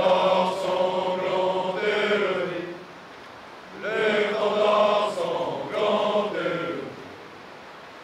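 A group of men, the chasseurs' ranks, singing together in unison in long held phrases. There are two phrases of about three seconds each, with a pause of about a second between them.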